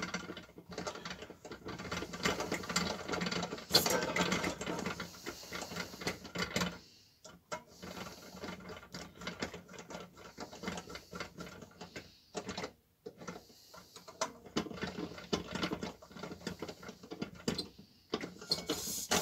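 Screwdriver turning the screws that hold the top plate of a Salter parcel scale, a fast run of small clicks and scraping of metal on metal. It comes in three stretches, with short pauses about seven and thirteen seconds in.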